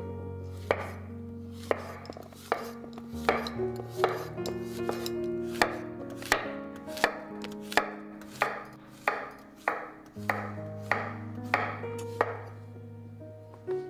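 Chef's knife slicing zucchini into rounds on a wooden cutting board: a steady run of crisp knife strikes against the board, about one and a half a second, with a short pause near the end. Background music plays underneath.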